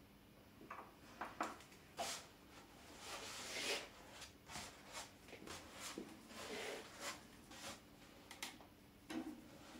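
Tailstock of a Oneway lathe being handled by hand: faint, scattered clicks, knocks and short rubbing sounds.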